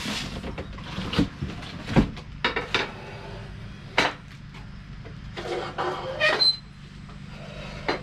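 Cardboard box and packaging handled as a sliding miter saw is lifted out and set down on a concrete floor: a string of knocks, rattles and clicks, the loudest a heavy thump about two seconds in.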